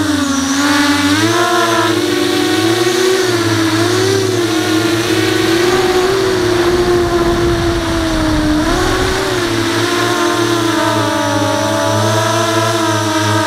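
Motors and propellers of a 5-inch FPV quadcopter whining, the pitch sliding up and down with the throttle. The pitch swells several times, rises again about nine seconds in, and holds a little higher near the end.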